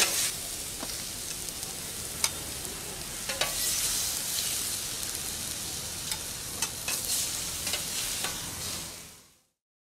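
Vegetables sizzling on a hot plancha's steel cooking plate, with scattered sharp clicks and scrapes of a metal spatula against the plate as they are turned. The sizzle fades out about nine seconds in.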